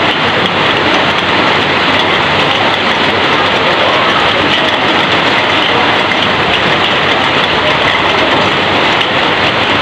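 Heavy rain falling steadily on corrugated roof sheets, with water streaming off the roof edges: a dense, even hiss that does not let up.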